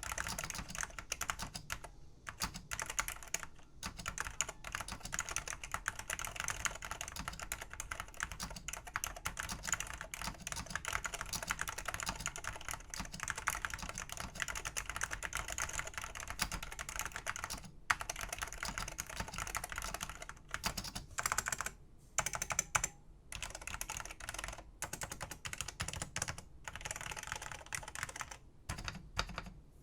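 Steady typing on a 1989 OPC-branded ASCII terminal keyboard with linear Alps SKCL yellow switches and double-shot keycaps: a dense run of key clicks and bottoming-out clacks, broken by a few brief pauses.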